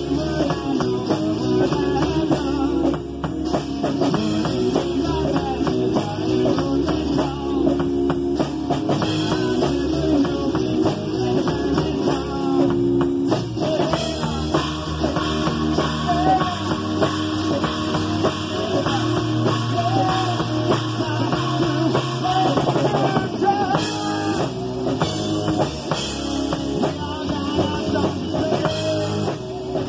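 A rock band playing a song: a drum kit keeping a steady beat under guitars, with a wavering melody line entering about halfway through.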